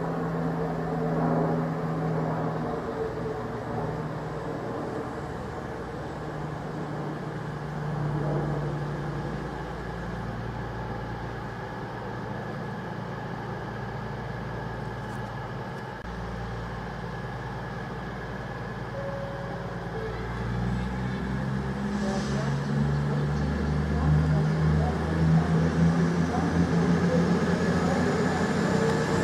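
CrossCountry Voyager diesel multiple unit's underfloor diesel engines running with a steady hum as the train draws slowly into the platform. The sound grows louder about two-thirds of the way through, and a faint rising whine comes in near the end.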